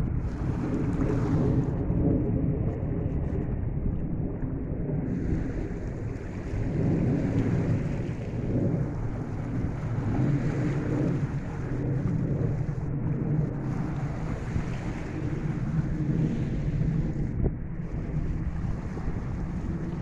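Wind buffeting the microphone with a deep rumble, over sea waves washing against shoreline rocks; the noise swells and eases every few seconds.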